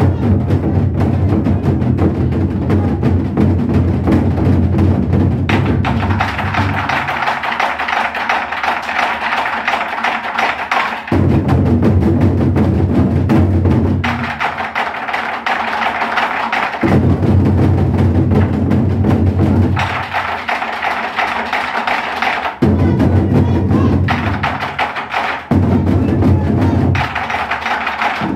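Korean nanta drumming on a modeumbuk drum set, as rhythmic music. Passages of deep drum-head strokes alternate every few seconds with brighter, clacking passages like sticks striking wood.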